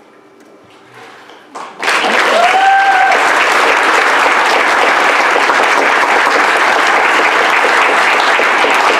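Congregation clapping and cheering, loud and steady from about two seconds in, just after a short splash of water as a girl is brought up from immersion in a baptistry tank. One short high-pitched call rises out of the clapping near its start.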